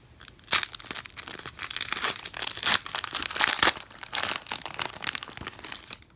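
Trading card pack wrapper crinkling and tearing as it is ripped open by hand, a dense run of irregular crackles that stops shortly before the end.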